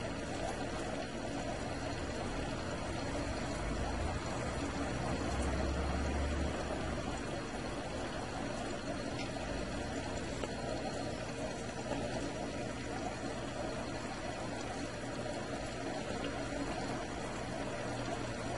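Water running steadily as an aquarium gravel siphon drains tank water, with a continuous flowing noise.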